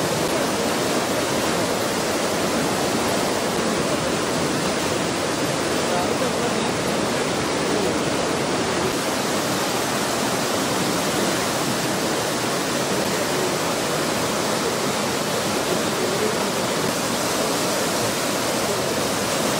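Swollen Pamba river in flood: fast, churning floodwater rushing in a steady, unbroken rush of noise.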